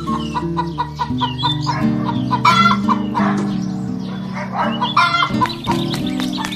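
Chickens clucking in short bouts, over background music of held, stepping notes.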